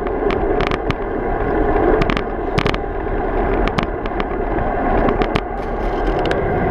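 Road bike rolling along an asphalt path: a steady rush of wind on the handlebar-mounted camera's microphone and tyre rumble, with irregular sharp clicks and rattles as the bike goes over bumps.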